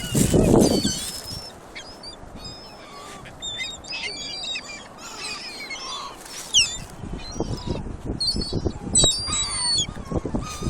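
A flock of gulls calling over one another in many short, high, squealing cries that slide in pitch. Low rumbling bursts come in the first second and again between about seven and nine seconds in.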